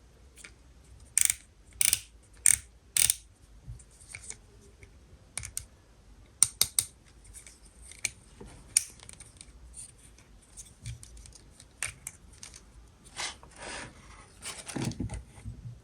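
Hands handling an opened Kinder surprise egg and its contents: sharp plastic clicks and snaps, a few of them loud, with a longer stretch of rustling and crinkling near the end.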